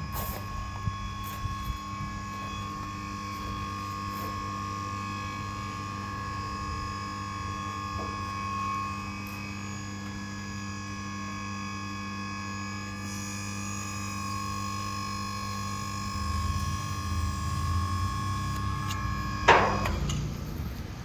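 Steady electric hum from the scissor lift's 3 HP hydraulic power pack motor and pump, with one sharp, loud sound falling in pitch about a second and a half before the end.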